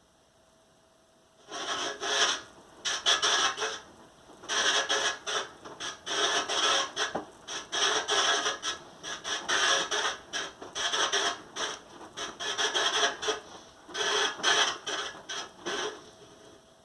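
Rasping, scraping noise from an LG device, coming in irregular bursts of about half a second to a second with short pauses between them. This is the strange noise the owner is reporting.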